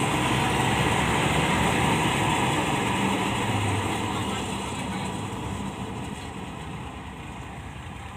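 Heavy farm machinery's diesel engine running steadily, fading gradually from about halfway through as it gets further off.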